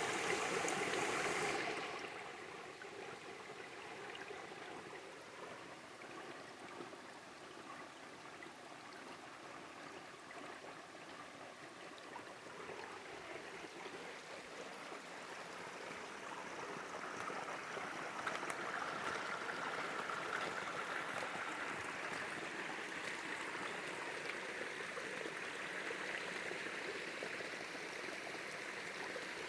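Water from a spring and small waterfall flowing and splashing in a steady rush. It is louder for the first couple of seconds, drops back, then slowly grows louder again in the second half.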